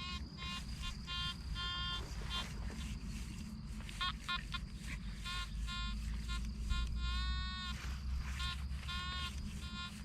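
Metal detector beeping in quick runs of short tones as the coil is swept back and forth over a target whose reading jumps around the 80 mark. There is one longer, slightly wavering tone about seven seconds in, over a low steady rumble.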